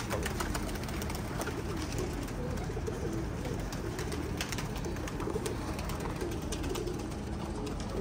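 A flock of domestic pigeons cooing, with scattered wing flaps and claps as birds take off from and land on the loft.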